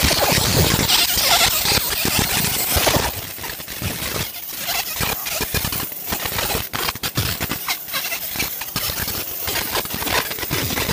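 50 W fiber laser marking silver: a high, hissing sizzle where the beam strikes the metal. It is strongest and most continuous for the first few seconds, then thins out and turns broken and crackly.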